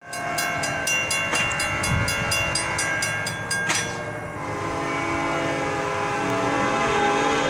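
Railroad crossing bells ring at about four strokes a second while the gate arms come down: a WCH mechanical bell and a GS Type 2 electronic bell. They stop about four seconds in, once the gates are fully lowered. A locomotive horn then sounds, held steady, as the train approaches.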